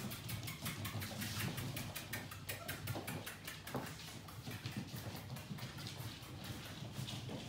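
Claws of Welsh springer spaniel puppies and an adult dog clicking and pattering rapidly on a hard tiled floor as they run and play, over a low steady hum.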